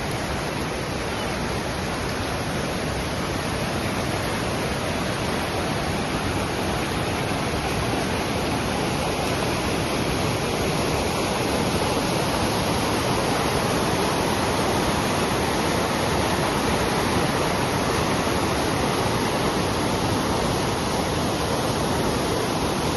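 Waterfall crashing, a steady, even rush of falling water.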